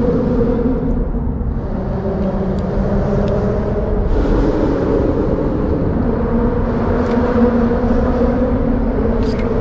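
Steady low rumble and hum of road traffic crossing the bridge overhead, with a few faint clicks.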